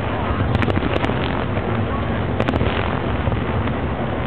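Fireworks display going off: a steady low rumble of bursts, with clusters of sharp cracks about half a second in, around one second, and about two and a half seconds in.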